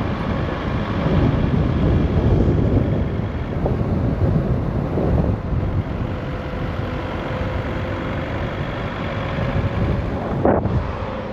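Car driving along a road: steady engine and road noise, with some wind on the microphone.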